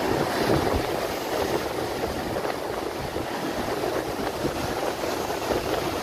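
Sea surf breaking and washing over rocks, a steady rushing noise, with wind buffeting the microphone.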